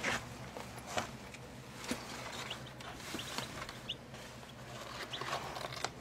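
Baby chicks peeping in short, scattered high chirps. Rustling and a few light knocks sound as they are handled.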